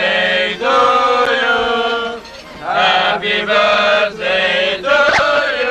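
Group of voices singing a birthday song together, in long held notes with short breaks between lines.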